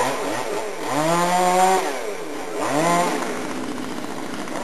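Chainsaw revving up and down in several quick throttle blips, held at high speed for about a second, then dropping back to a steady idle near the end.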